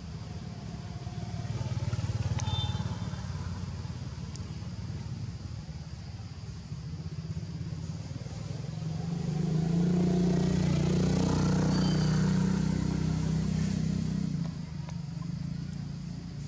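A motor vehicle's engine passing, with a low steady hum that swells briefly about two seconds in and again, much louder, from about nine to fourteen seconds in.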